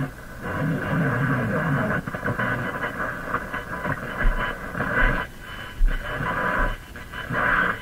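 Vintage Canadian GE G-40 vacuum-tube radio playing a broadcast station through its speaker, in a thin, narrow band with a faint hiss. A few low bumps come in the middle.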